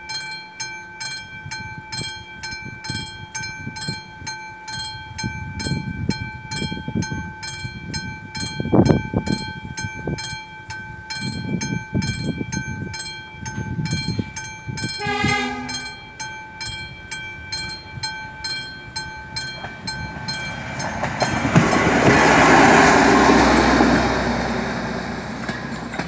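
A level-crossing warning bell rings in regular, even strokes. A short train horn blast comes about 15 s in. Near 20 s the bell stops as a diesel railcar runs over the crossing, its passing noise loudest a couple of seconds later and fading near the end.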